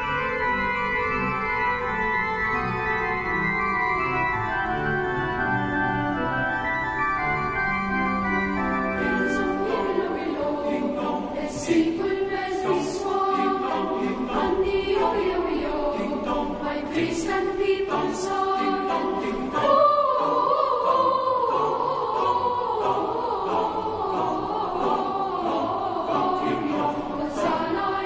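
Pipe organ playing alone, then a choir of men and boys comes in about nine seconds in, singing a carol with the organ accompanying.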